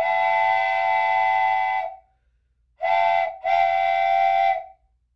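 Steam train whistle sounding three blasts: a long one of about two seconds, a short one, then a longer one, each a chord of several tones that sags slightly in pitch as it dies away.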